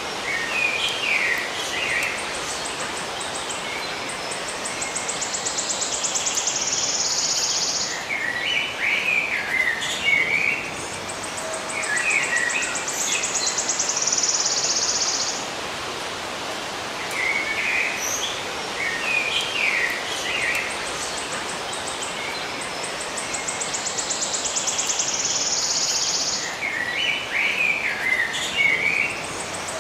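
Birds chirping in short bursts that alternate with a high, pulsing insect buzz. The buzz swells for several seconds and then cuts off suddenly, and the cycle repeats about every nine seconds over a steady outdoor hiss.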